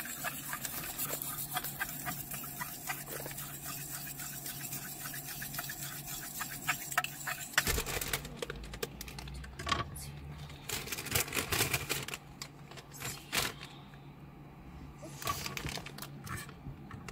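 A utensil scraping sauce across burger buns, a quick run of fine strokes for about seven seconds. This is followed by scattered clicks and knocks of food handling, over a steady low hum.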